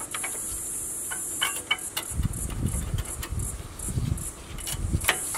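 Old rear brake pads being worked out of the caliper bracket by hand: a series of light metallic clicks and scrapes with a few low knocks, over a steady high-pitched insect chorus.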